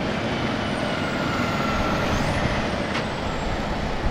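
Semi truck pulling a refrigerated trailer through a slow turn close by, its diesel engine running steadily under tyre noise, with a short sharp click about three seconds in.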